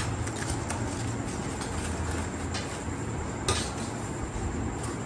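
Metal serving spoons clinking and scraping against aluminium degh pots as rice is scooped into foam boxes, over a steady background hum. One sharper clack comes about three and a half seconds in.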